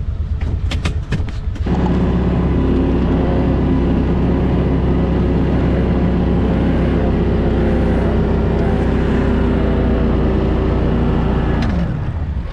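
Vehicle engine revved and held at steady high revs for about ten seconds, with the differential locked, as the vehicle tries to drive out of deep snow it is stuck in. A few sharp clicks come before the engine note rises, and it drops off near the end.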